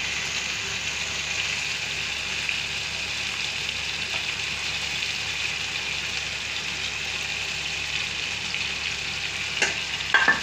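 Masala gravy sizzling steadily in an iron kadhai, an even hiss. Near the end a metal spatula knocks and scrapes against the pan a few times as stirring starts.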